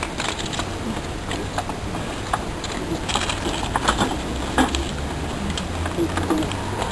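Papers being handled and shuffled on a table of press microphones, with scattered clicks and knocks, over a steady low hum.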